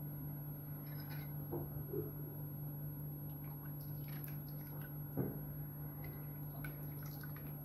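Steel ladle stirring and lifting sheer khurma, a milky vermicelli pudding, in a bowl: faint liquid slopping with a few soft knocks, the clearest about five seconds in, over a steady low hum.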